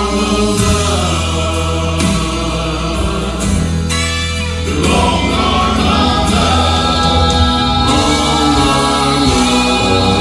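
Gospel vocal quartet singing in close harmony over a backing track, holding long sustained chords.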